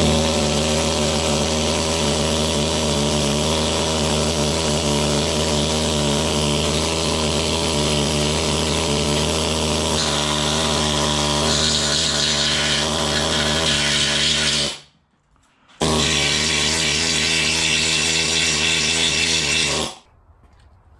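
Pneumatic needle scaler running against a rusty Jeep TJ steel frame rail, chipping scale and rust off the metal with a steady, loud buzz. It runs for about fifteen seconds, stops for about a second, then runs again for about four seconds before cutting off.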